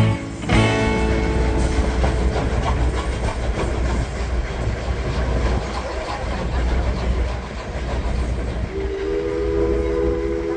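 Train running with a steady low rumble. About nine seconds in, its whistle sounds a steady chord of several notes.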